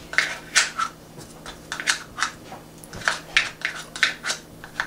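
A spatula scraping butter out of a measuring cup into a stainless steel saucepan: a string of short, irregular scrapes and light taps against the cup and pan rim.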